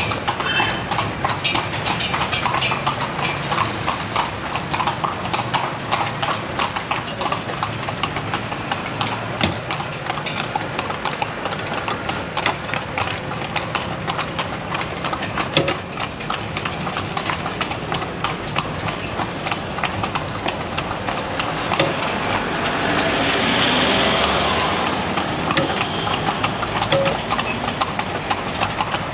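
A pair of carriage horses' hooves clip-clopping steadily on a paved street. About three quarters of the way through, a louder rushing sound swells and fades.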